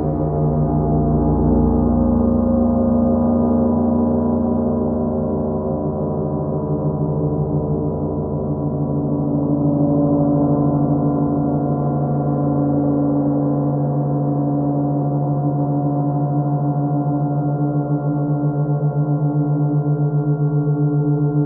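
Large 50-inch Oetken Sound Creation gong rubbed with a friction mallet, giving a sustained, rough drone of many overlapping tones. A low throbbing pulse runs through it and becomes most marked near the end.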